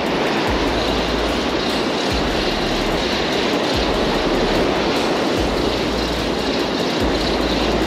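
Surf and wind rushing over the microphone, with deep gusts of buffeting that come and go every second or two. A spinning reel is being wound in under the load of a hooked fish.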